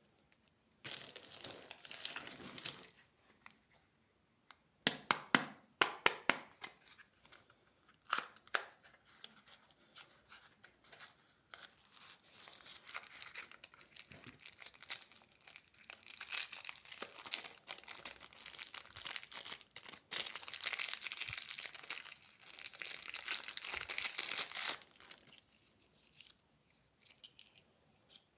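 Candy packaging being torn open and crinkled by hand, in irregular bouts: sharp crackles a few seconds in, then a long stretch of steady crinkling and rustling that dies away near the end.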